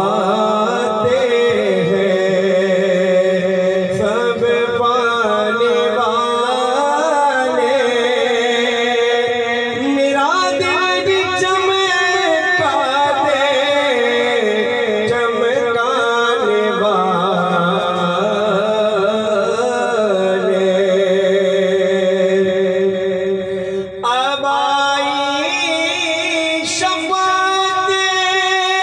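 A man singing a naat into a microphone, in slow, drawn-out phrases that bend and waver around long held notes. There is a short break about 24 seconds in before a new phrase starts.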